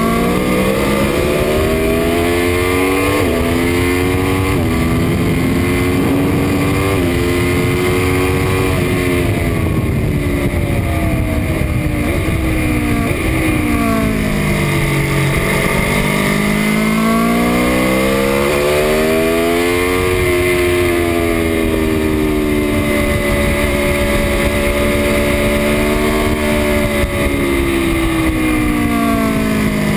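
Aprilia Tuono V4 1100 RR's V4 engine lapping a circuit under hard acceleration: its pitch climbs in steps with quick drops at the upshifts over the first several seconds, falls as the bike slows about halfway through, then climbs again and holds fairly steady near the end.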